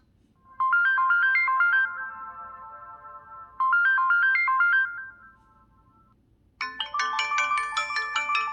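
LG Extravert 2 (VN280) cell phone ringtones. A short melody of quick notes that end in fading held tones plays twice. Near the end a different, busier ringtone melody starts.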